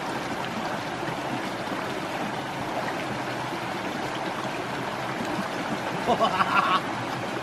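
Small stream running over rocks in a little cascade: a steady rush of water. A short voice call breaks in about six seconds in.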